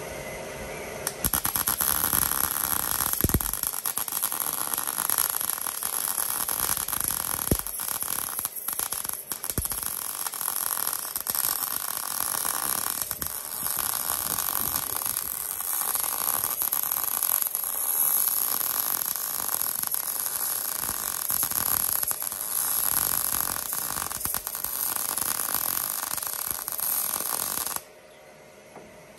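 MIG welder arc crackling steadily as it runs a weld on a steel chassis strengthening plate. It starts about a second in and cuts off sharply shortly before the end.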